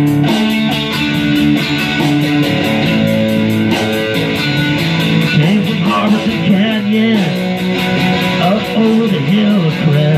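Electric guitar playing over a slow sixteenth-note rock groove at 70 BPM, its high ticks coming about five times a second. A wavering melodic line bends up and down in pitch over the guitar, most of all in the second half.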